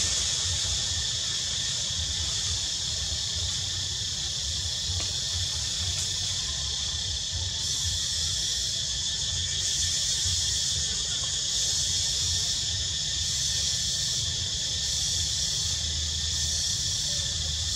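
Steady, high-pitched chorus of insects, with a low rumble underneath.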